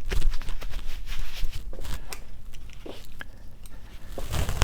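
Hands at work: scattered rustling with light clicks and a soft knock near the end.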